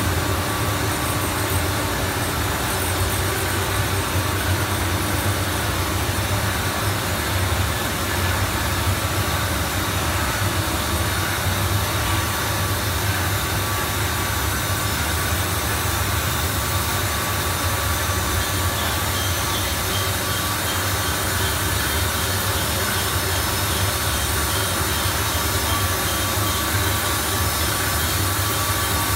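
Steady drone of foam-cutting machinery and its conveyor tables running, with a strong low hum and a faint steady whine above it.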